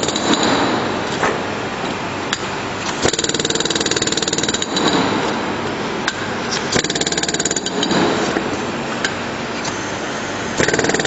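Pneumatic lining rammer hammering rapidly in bursts of about a second over a steady hiss, with a few single knocks in between.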